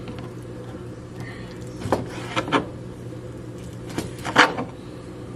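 Broad-bladed kitchen knife cutting through raw chicken breast and knocking on the cutting board: a cluster of three strokes about two seconds in and two more about four seconds in, over a steady low hum.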